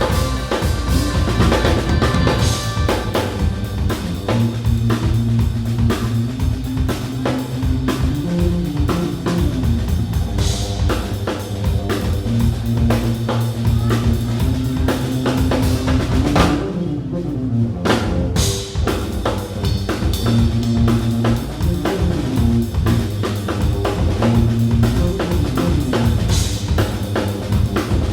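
Live band playing instrumental music: a drum kit with bass drum and snare keeping a steady beat under a repeating bass line. The cymbals and high end drop out for a moment about two-thirds of the way in, then come back.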